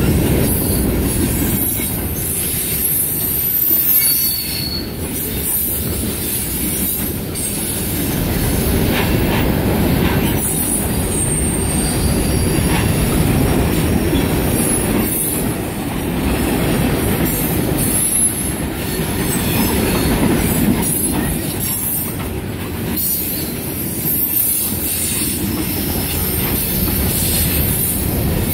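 Freight cars of a CSX manifest train rolling past close by: a steady loud rumble of wheels on rail, with high-pitched wheel squeal coming and going and occasional clacks over rail joints.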